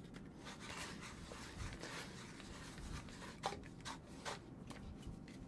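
Ridgid handheld tubing cutter being turned around a thick black plastic drain tailpiece, its blade scraping faintly as it scores the pipe, with a few light clicks about halfway through.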